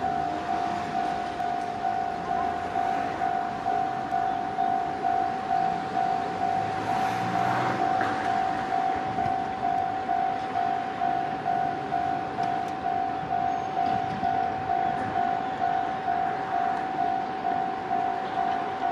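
Railway level-crossing warning bell ringing, an even repeating electronic ding at about two strikes a second, while an EV-E801 series ACCUM battery train approaches with a faint rolling sound underneath.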